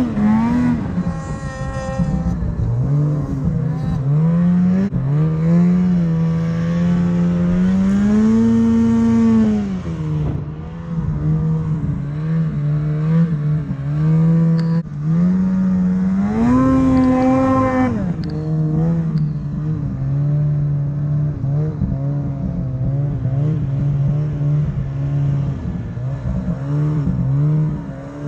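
Snowmobile engine revving up and easing off again and again as the sled is ridden through deep powder, the pitch climbing sharply several times and dropping back between.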